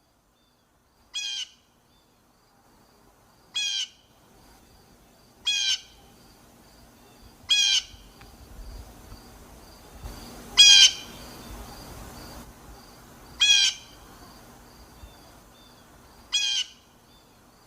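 Blue jay giving harsh, scratchy 'jay' calls: seven short screams, one every two to three seconds.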